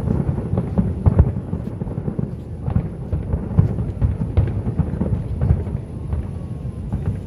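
Aerial fireworks shells bursting in quick succession: a dense run of bangs and crackling pops over a low rumble.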